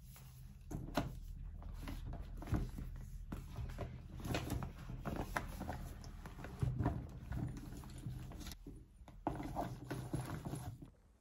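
Handling noise of packing a leather tote bag: a laptop slid in and items set down inside, giving a string of short knocks and clicks with rustling between them.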